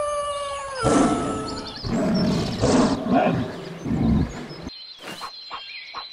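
Dubbed animal sound effects: a long cry sliding down in pitch, then a run of loud roars and growls, ending with a few sharp clicks and faint chirps.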